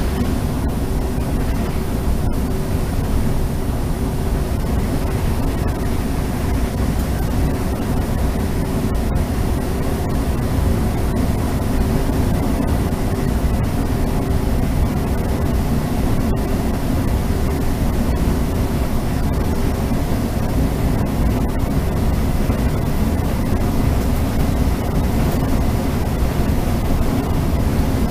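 Steady running noise inside an electric train's driver's cab at about 120 km/h: wheels rolling on the rails and air rushing past, with a faint steady hum.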